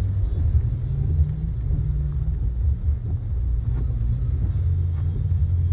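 Steady low rumble of a car heard from inside its cabin while it moves slowly in traffic.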